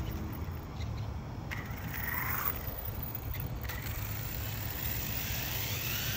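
Wind rumbling on the microphone, with a few light clicks; near the end the whine of the RC car's Surpass Hobby 3500 kV brushless motor rises in pitch as it accelerates away.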